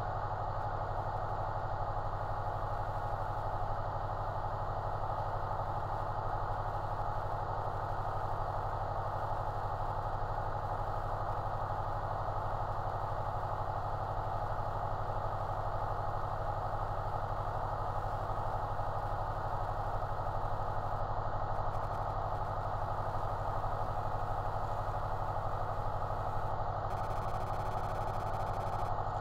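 Carburetted piston engine of a small single-engine aircraft running steadily at idle on the ground, a constant drone heard from inside the cockpit.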